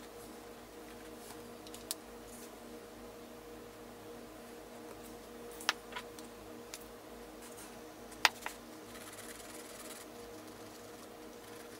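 Light clicks and taps of an orange Faber-Castell Pitt artist pen being handled and touched to a canvas. The two loudest come about halfway and two-thirds through, each followed closely by a softer one. Near the end there is faint scratching of the pen tip on the textured canvas, all over a steady electrical hum.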